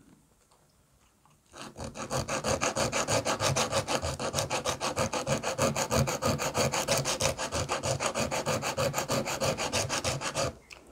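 Hand sanding a small laminated hardwood bow piece with sandpaper, to shape it down. The sound is quick, even back-and-forth rubbing strokes, about five or six a second. They start about a second and a half in and stop just before the end.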